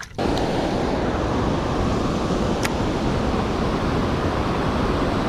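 Steady rushing noise of river water pouring over a dam spillway, mixed with wind on the microphone. It starts abruptly just after the beginning, and one brief click sounds about halfway through.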